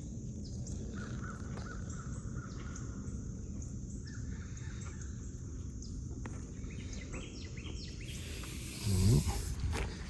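Outdoor background: a steady low rumble with birds calling faintly now and then. About nine seconds in, a louder brief burst of noise with a short voiced sound.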